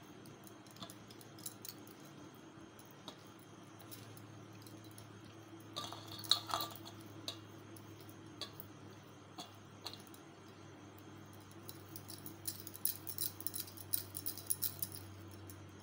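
Quiet handling of soft, sticky potato dough being stuffed with paneer and rolled into a ball by hand: faint scattered clicks and a run of small sticky crackles near the end, over a steady low hum. A short clatter about six seconds in is the loudest sound.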